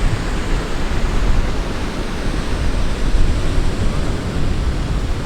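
Steady rushing noise of wind buffeting the microphone and ocean surf, with an uneven rumble in the low end.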